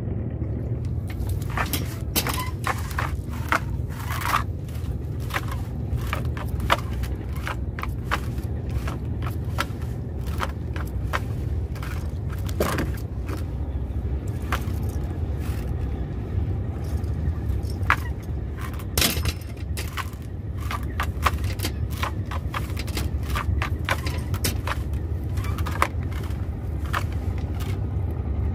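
Small boat's engine idling with a steady low rumble, overlaid by frequent irregular scrapes, clicks and knocks of gear being handled close by.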